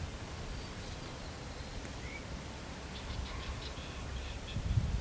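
Quiet outdoor ambience: a low wind rumble with a few faint, short bird chirps about two seconds in and again near the end.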